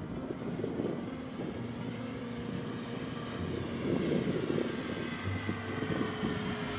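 Radio-controlled Spitfire model aircraft flying past, its motor and propeller making a whine that glides slowly in pitch as it passes. Irregular rumbling gusts of wind on the microphone run underneath.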